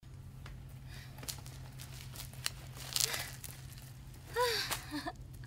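Bicycle tyres rolling over grass and dry fallen leaves, with irregular crackles and ticks over a low steady hum. A woman's voice sounds briefly near the end.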